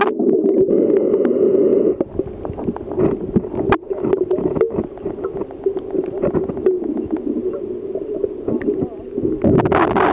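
Muffled underwater sound heard through a waterproof camera housing in a swimming pool: a steady hum with scattered clicks and knocks, one sharp knock a little under four seconds in. A louder rushing noise fills the first two seconds and comes back near the end.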